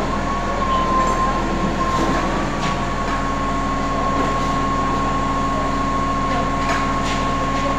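Industrial machinery running steadily: a constant loud drone with an unchanging high whine and a low electric-motor hum beneath it.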